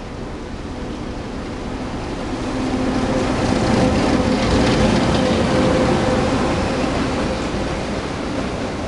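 Locomotive-hauled intercity through train approaching and passing through the station without stopping, its rumble building to a peak about four to six seconds in and easing off near the end, with a steady hum under it.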